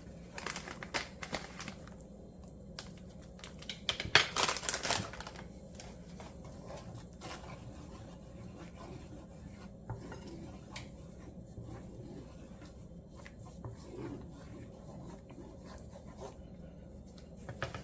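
A spoon stirring and scraping in a pot of coconut-milk curry sauce. There are a few louder scrapes in the first second or so and again about four seconds in, then only faint occasional clinks.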